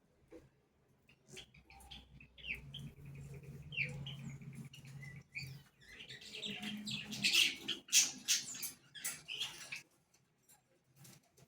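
An animal eating acerola leaves: leaves rustling and crunching, loudest in the second half, with short high chirps in the first half.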